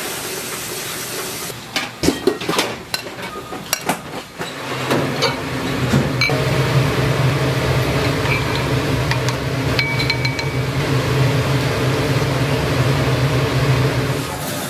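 Commercial ramen-kitchen sounds: metal tongs, steel containers and ceramic bowls clinking and clattering for a few seconds. Then a steady low hum of kitchen equipment runs on, with a few light clinks over it.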